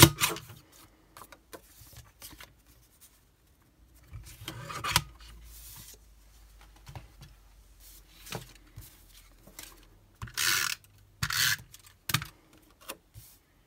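A paper trimmer clicks sharply and its blade slides along the rail through patterned paper, followed by small clicks and rustles of paper and tools being handled. Near the end come two short zipping strokes of a tape runner laying adhesive.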